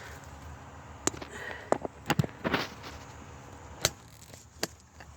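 A handful of separate, sharp light clicks and knocks, spread out over a few seconds against a faint background, like things being handled.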